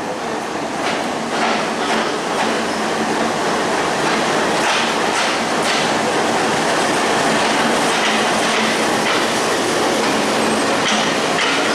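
WDM-3D diesel-electric locomotive with an ALCO 251 V16 engine, passing close at low speed with its engine running steadily. Its wheels click over the rail joints.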